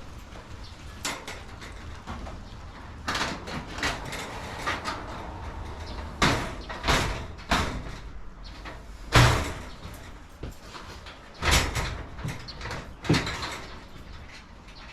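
Irregular knocks, bangs and clatters from garage door panels and hardware being handled and fitted, the loudest bang about nine seconds in.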